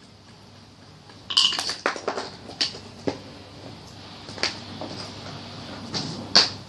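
Sharp clinks and knocks of small hard objects, a quick cluster about a second in and then single ones spread out, the loudest near the end, over a faint steady hum.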